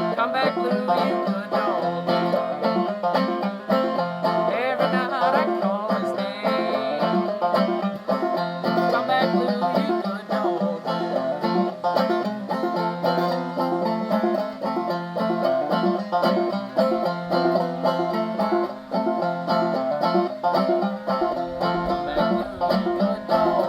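Clawhammer banjo playing an instrumental passage, a steady, driving rhythm of picked melody notes and brushed strums.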